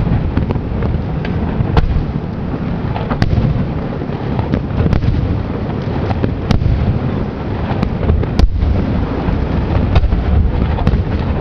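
Aerial firework shells bursting in a display: a continuous deep rumble of booms, with sharp cracks standing out every second or two.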